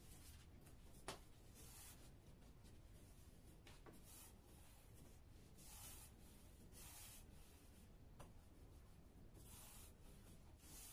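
Faint swishing and rubbing of a long thin wooden rolling pin over thin sheets of floured baklava dough as the layers are rolled out. The strokes come in short bursts every second or two, with three light taps in between.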